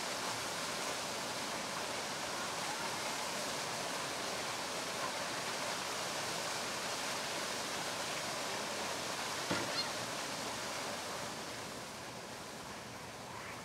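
Steady rushing splash of a fountain's water jets, with two short knocks about two-thirds of the way through.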